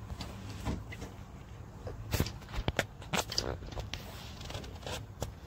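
YQK-70 hand hydraulic crimping tool being handled while a wire lug is set in its die: light rattling and rustling, with a handful of sharp clicks from the tool's handle and jaws, most of them in the middle of the stretch.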